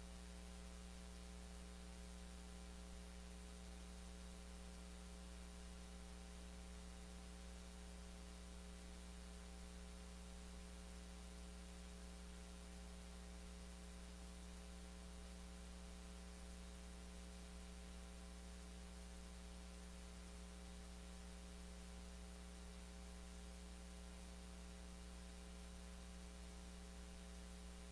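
Steady electrical mains hum with a faint hiss and a thin high whine, unchanging throughout: the noise floor of the sound system or recording feed with no program audio on it.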